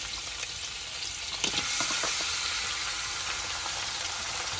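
Raw chicken pieces sizzling as they are tipped into hot oil and onions in a wok, the frying hiss growing louder about a second and a half in as more chicken lands in the pan. A couple of light knocks are heard early on.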